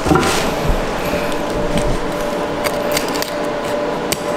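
Filleting knife working through a bluefin tuna's collar and rib area, with scattered clicks and crackles as the blade catches on bone and cartilage. A soft thump at the start as the fish is handled, over a steady faint hum.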